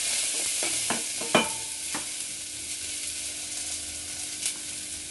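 Garlic and shallots sizzling in hot oil in a stainless steel saucepan, stirred with a spatula that knocks against the pan several times in the first two seconds. One more light knock comes near the end.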